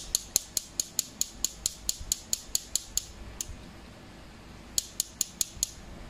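A pointed tool tapping on a watch's tempered-glass screen protector: a rapid run of light, sharp clicks, about four or five a second, then a pause and a shorter run of about five near the end.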